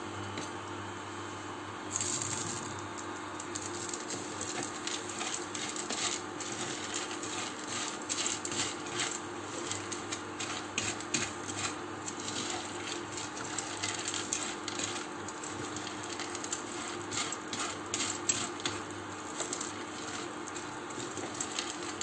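Dry whole-grain fusilli stirred in a frying pan with a wooden spatula: the hard, uncooked pasta pieces rattle and click against the pan in a quick, irregular clatter that starts about two seconds in, over a steady low hum.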